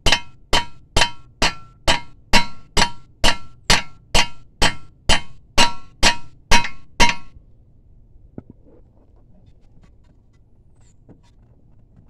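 Three-pound hammer striking the nut threaded onto the end of a 2014 Kia Forte's CV axle, about two ringing metal blows a second, stopping about seven seconds in. It is driving a stuck axle shaft out of the wheel hub.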